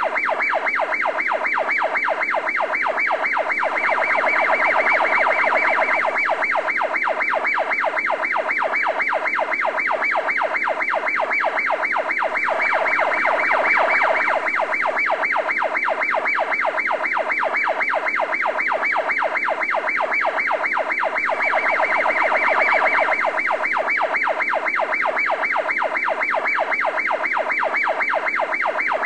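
Electronic siren-like warbling tone, pulsing rapidly and steadily and swelling slightly about every nine seconds, laid over the footage in place of the machines' own sound.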